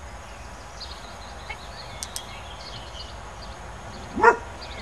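A dog gives one short, high yip near the end, loud against the quiet background. Before it come faint chirps and two light clicks.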